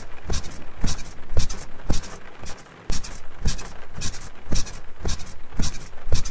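Bed springs and mattress squeaking in a steady rhythm, about two creaks a second, each with a low thump, with a brief pause about two and a half seconds in.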